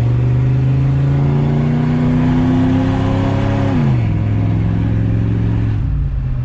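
The 1993 Chevrolet Caprice wagon's 305 TBI small-block V8 pulling at full throttle, its pitch slowly rising. The pitch drops sharply about four seconds in as the transmission shifts up, then holds steady, and the engine eases off just before the end. The engine runs poorly and has to be floored to keep going.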